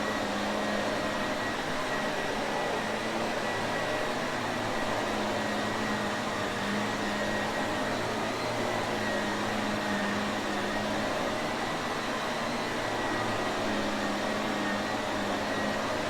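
Shark Navigator upright vacuum cleaner running steadily, a constant motor whine and rushing air with a low hum and a faint high tone.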